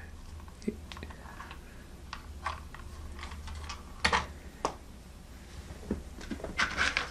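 Light scattered clicks and taps of hard plastic toy pieces being handled and set down, the two sharpest about four seconds in, over a low steady hum.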